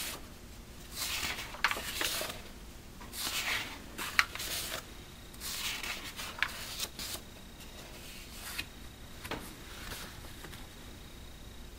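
Pages of an old pulp-paper magazine being turned by hand: three papery swishes in the first seven seconds, with small ticks from the paper, then quieter rustling and handling.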